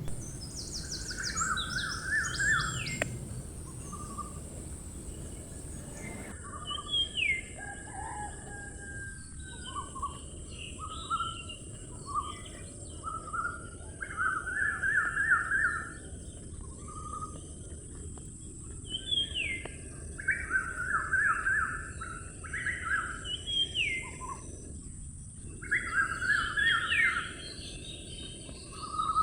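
Birds singing: many short, repeated chirping and warbling phrases, over a steady high hiss.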